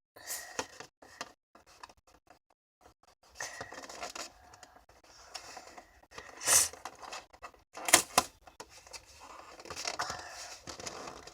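Plastic and cardboard toy packaging rustling and crinkling as it is pulled open and handled, with two sharp louder crackles past the middle.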